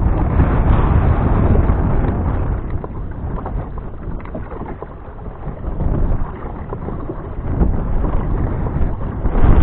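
Strong wind buffeting the microphone, a heavy low rumble that comes in gusts: loud at first, easing about halfway through, then building again near the end.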